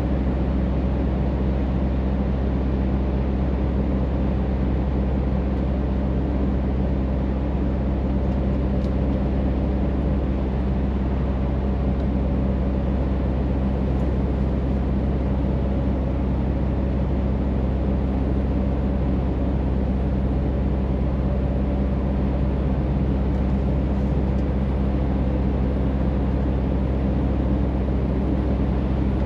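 Scania truck's diesel engine running steadily at cruising speed, heard inside the cab as an even low drone mixed with road and tyre noise.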